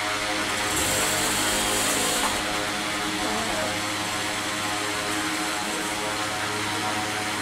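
A steady mechanical drone with a low hum under an even hiss, with a brighter hiss that comes in about a second in and lasts about a second and a half.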